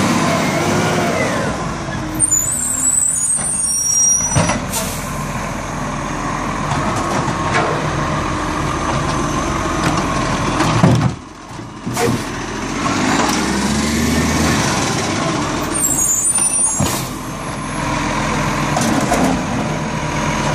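Side-loading garbage truck's diesel engine running and revving up and down as it pulls from bin to bin, with several sharp air-brake hisses. Near the end its hydraulic arm lifts and tips a wheelie bin.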